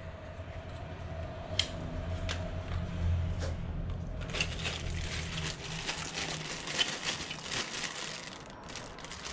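Packaging being handled and pulled apart: plastic and cardboard crinkling and rustling, denser from about four seconds in, with a few sharp clicks before that.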